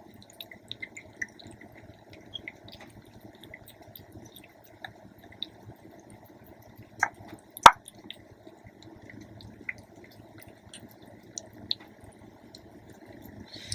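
Cat eating soaked freeze-dried fish morsels from a bowl: faint wet smacking and licking clicks throughout, with two sharper clicks a little past halfway.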